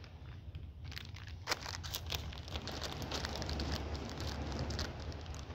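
Packaging crinkling and crackling in the hands, many quick irregular crackles starting about a second in, over a steady low rumble.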